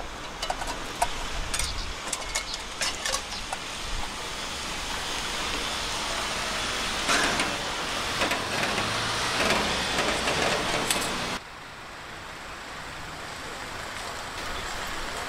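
Stainless camp cookware clinking and knocking as it is handled, over a steady rushing background noise that drops suddenly about eleven seconds in.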